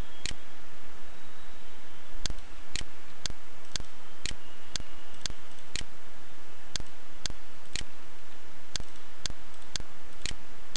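Regular, evenly paced ticking about twice a second, with a few beats skipped, over a steady background hiss.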